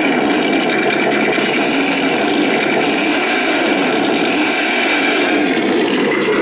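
Electronic engine sound module of a 1/10-scale RC trophy truck playing a simulated engine note that rises and falls in pitch several times as the throttle is worked, over a steady hiss.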